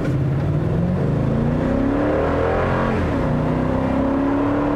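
The 5.7-liter V8 of a 2020 Toyota Sequoia TRD Pro, heard from inside the cabin, under hard acceleration. The engine note rises for about three seconds, drops suddenly as the six-speed automatic upshifts, then starts rising again.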